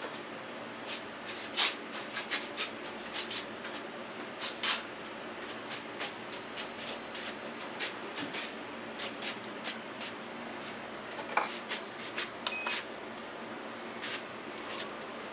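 Scattered sharp clicks and taps of gear being handled at a wood lathe, over a steady low hum. Near the end a high steady whine comes in as the lathe's motor starts up.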